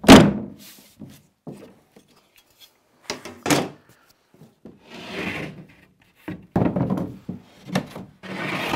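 A 12 mm cement board snapping in two along its score line with a single sharp crack right at the start. Then come a few knocks and a scrape as the halves are moved and lifted off the floor.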